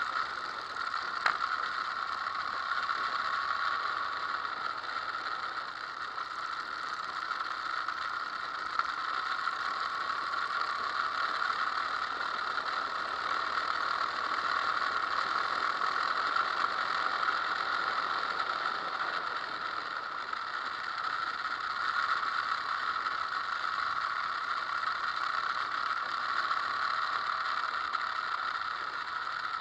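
Steady, muffled running noise of a motorcycle on the move, heard through a bike-mounted action camera: engine and wind mixed together, with little deep rumble. One sharp click about a second in.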